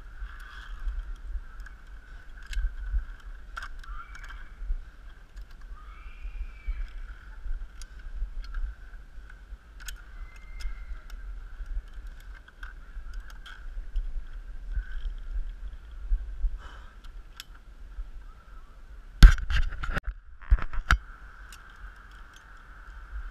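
Metal safety clips and carabiners on a ropes-course lanyard clicking against the steel cable now and then, with a loud burst of clanks about 19 seconds in and a few more about a second later. A steady high-pitched hum and low rumble sit underneath.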